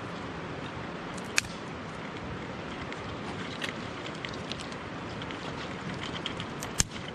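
Steady rushing of a mountain stream, with a sharp click about a second and a half in, a few faint ticks, and another sharp click near the end.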